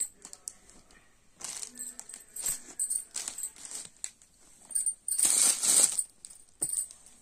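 Cloth rustling and swishing in several bursts as a winter kurti is unfolded by hand and spread flat, the loudest burst about five seconds in, followed by a single sharp click.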